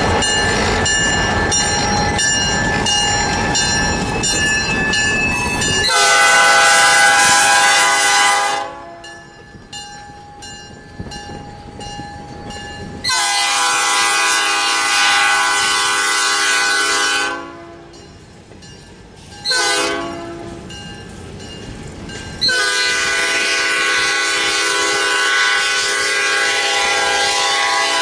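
A diesel freight train passing close: for the first six seconds the locomotive and its wheels make a loud, dense noise. Then the locomotive's multi-chime air horn sounds long, long, short, long, the standard grade-crossing signal, as the train pulls away. Between the blasts the freight cars clatter faintly on the rails.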